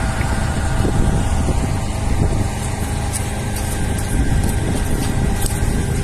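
An engine running steadily at a constant speed, with a few faint ticks over it in the second half.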